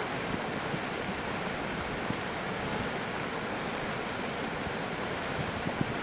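Beehive Geyser erupting: a steady rushing hiss of water and steam.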